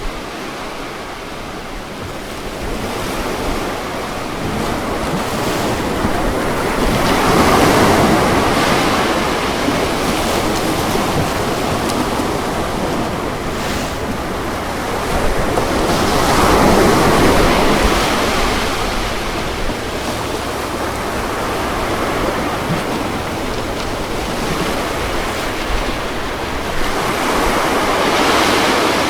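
Ocean waves washing onto a beach: a steady surf hiss that swells into a breaking wave three times, about every nine or ten seconds.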